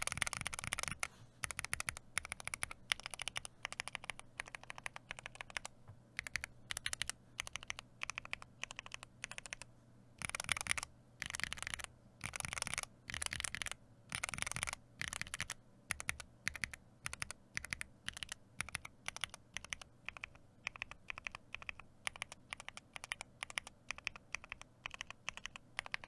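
Typing on a KBD8X MKII mechanical keyboard fitted with a mix of HK Gaming PBT and GMK ABS keycaps: runs of quick keystroke clacks in uneven bursts with short pauses between.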